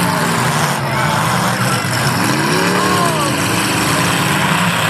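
Many demolition derby cars' engines running hard together, with crowd chatter over them; one pitch swells up and falls back a couple of seconds in.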